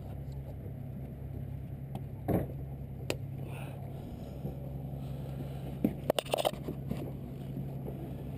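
A steady low motor hum from the moored boat, with a few sharp knocks and a brief clatter of footsteps and gear on the fibreglass deck about six seconds in.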